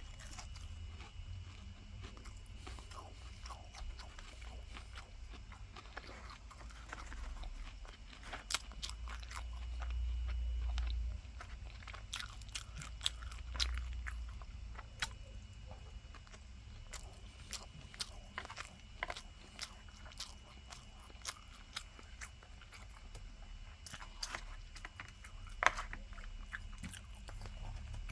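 Close-up chewing and biting of a crisp breaded fried pork cutlet (tonkatsu), with many short, sharp crunches scattered throughout. A low rumble swells for about three seconds near the middle.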